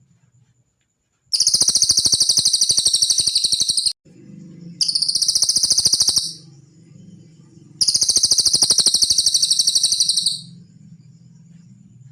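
Cililin songbird giving three long, high-pitched trills, each a very fast string of notes lasting from about one and a half to nearly three seconds, with short pauses between them.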